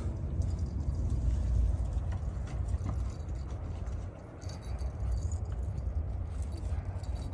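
Wind buffeting the microphone as a heavy, uneven low rumble, with faint scattered light clicks and jingles over it.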